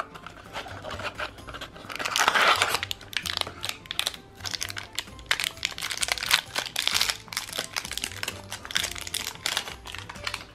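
Foil blind-bag wrapper crinkling and tearing as it is pulled open by hand, in irregular bursts, loudest about two seconds in and again a few seconds later.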